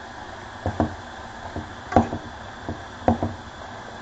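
A metal fork knocking and clinking against a frying pan while stirring food, with irregular knocks about twice a second. The loudest knock comes about two seconds in.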